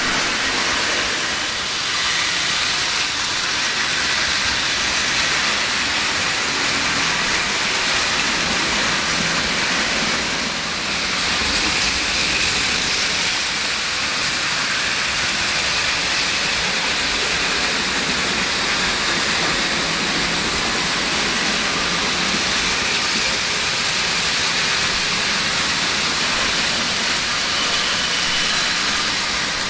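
Märklin HO model trains running on three-rail track: a steady rushing whir of small electric motors and metal wheels rolling on the rails.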